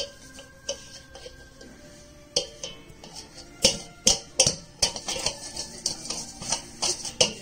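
Large stainless steel mixing bowl knocking and clattering as a baby's hands slap and push flour around in it and jostle the bowl. The knocks are irregular and come quicker and louder about halfway through.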